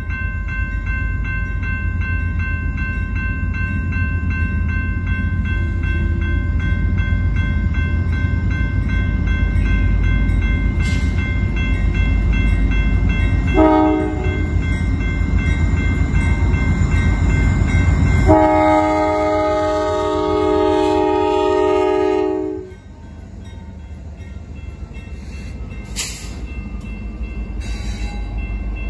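Nathan K5LA five-chime air horn on a Norfolk Southern AC44C6M locomotive sounding a short blast about two-thirds of the way through, then a long blast of about four seconds: the closing short and long of a grade-crossing horn signal. It plays over the steady deep rumble of the approaching diesel locomotives, which drops off suddenly as the long blast ends and the lead units pass.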